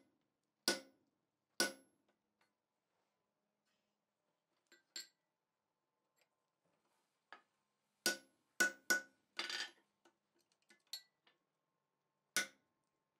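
Hand hammer striking a 9/16-inch slot punch being driven into a hot steel bar on the anvil: sharp metallic blows, two about a second apart near the start, a quick run of three about two-thirds through, and one more near the end. Fainter taps and clinks come between, and a brief rasping rattle follows the run of three.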